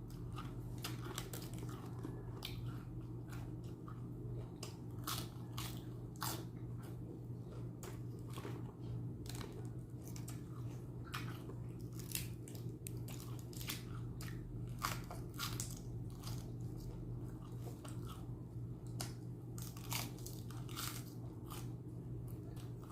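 A person biting and chewing crunchy food close to the microphone, with irregular crisp crunches over a steady low hum.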